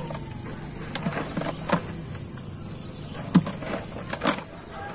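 Gill net being hauled by hand into a canoe: several short knocks as the net and the catch in it strike the hull, the loudest about three and a half seconds in. A steady high-pitched whine runs underneath.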